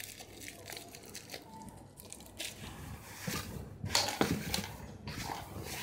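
Small plastic packet crinkling and tearing as it is pulled open by hand, with a louder rustle about four seconds in.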